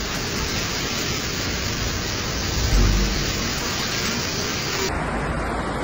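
Fast-flowing floodwater rushing through a flooded street, a steady noisy rush with a low rumble about three seconds in. The sound changes abruptly about five seconds in, as it switches to another clip of rushing water.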